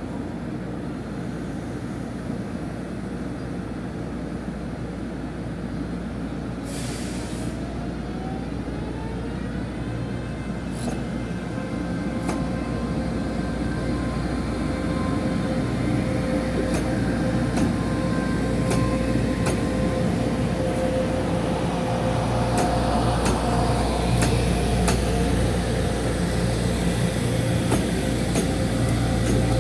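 Taiwan Railway EMU500 electric multiple unit pulling away from the station: a motor whine rises in pitch, then holds steady, while the wheels click over rail joints more and more often as it gathers speed. A brief hiss comes about seven seconds in, and the run grows slowly louder.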